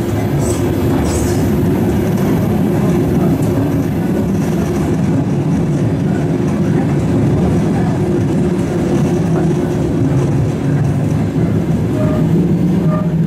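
ED9E electric multiple unit running along the line, heard from inside the carriage: a steady rumble of wheels on rail.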